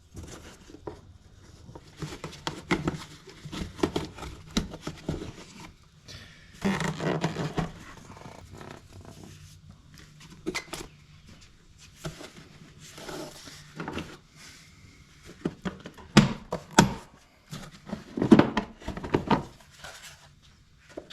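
Irregular clicks, knocks and rattles of hand tools and a plastic air box being worked loose and removed from an engine bay.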